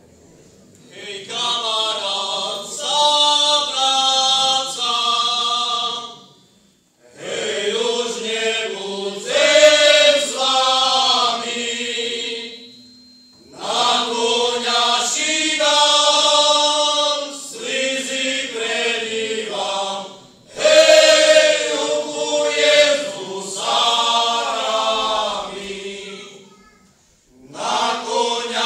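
Male folk singing group singing a Slovak folk song together, in phrases of about five to seven seconds with brief breaths between them.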